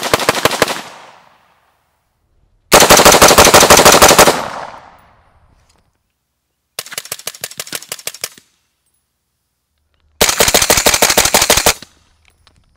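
AR-15 rifle in .300 Blackout firing four rapid strings of shots. The opening string is unsuppressed. The string about three seconds in is the loudest, with a long echoing tail. The string near seven seconds, with a Rugged Suppressors Surge 762 fitted, is much quieter with little tail. The last string near ten seconds is suppressed but picked up by a mic worn by the shooter, so it is loud again.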